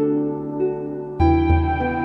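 Gentle new-age background music with sustained, harp-like notes; a new chord with deeper bass comes in about a second in.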